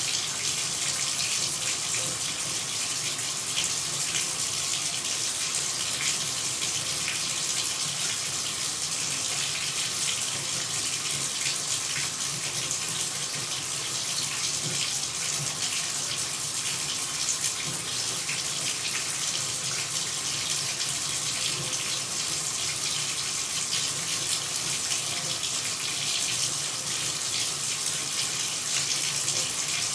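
Water running steadily, a continuous even hiss with no breaks or changes.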